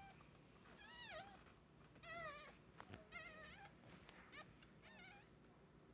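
Newborn puppies squealing faintly: a series of about five short, high, wavering mewing cries.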